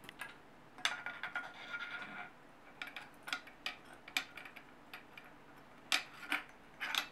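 Metal parts clicking and knocking as the new bullpup mechanism is handled and slid onto an Air Arms S410 air rifle. A short scraping rub comes about a second in, as the mechanism slides over the rifle's barrel shroud and receiver.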